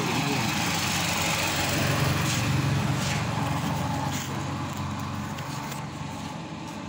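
An engine running with a steady low hum, growing quieter over the last few seconds.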